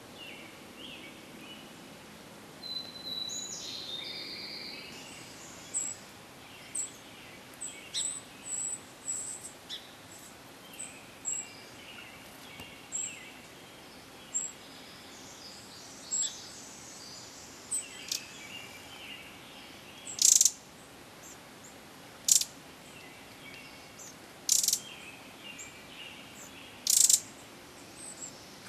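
Small songbirds calling: a brief warbling song near the start, then a run of short, high, thin chirps about once a second, and from about twenty seconds in four loud, sharp calls about two seconds apart.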